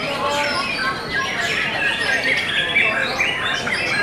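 Caged white-rumped shamas (murai batu) singing, a dense tangle of overlapping whistles, trills and chirps.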